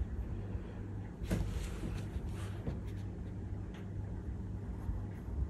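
Oil-based coloured pencil rubbing on paper as it is pressed hard, with a light knock about a second in and a few softer ticks, over a low steady hum.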